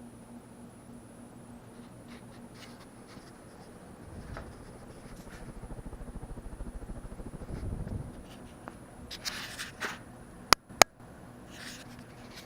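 Vintage Litex Oak Crest 52-inch ceiling fan running on high with a steady low motor hum and a slight vibration. Partway through, a low rumbling swell rises and falls, then there is some rustling and two sharp clicks in quick succession near the end.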